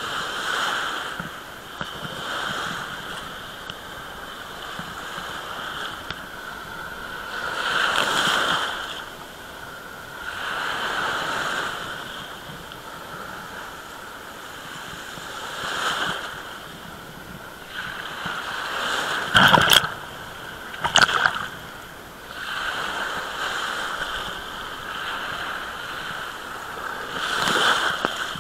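Small sea waves washing onto the shore, swelling and falling back every few seconds, with two sharper splashes a little past the middle.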